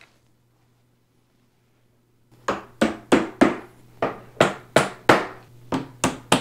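Rubber mallet knocking plastic scratch guards into the bottom ends of an IKEA Koppang dresser's particleboard legs. The quick knocks start a little over two seconds in, about a dozen of them at roughly three a second.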